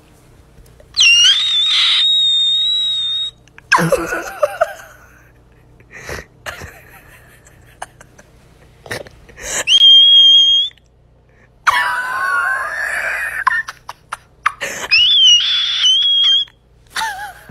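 Young orange cat giving several high, squeaky meows, each rising quickly and then held steady for a second or two, with a few lower, shorter calls between them.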